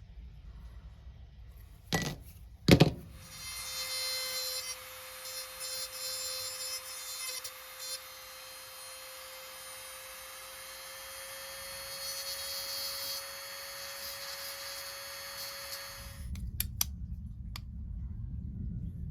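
Two sharp clicks, then a small high-speed rotary tool runs steadily for about thirteen seconds with a thin whine that creeps slightly up in pitch, and then stops.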